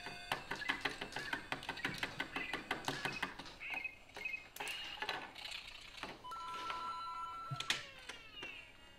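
Plastic LEGO pieces clicking and rattling as they are handled and snapped together, with short electronic beeps in between and a held two-note electronic tone about six seconds in, followed by falling chirps.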